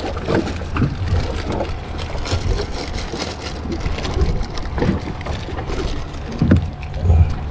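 Scattered crackles and small knocks from hands unhooking a speckled trout and handling the line close to the microphone, over a steady low rumble, with a couple of duller thumps near the end.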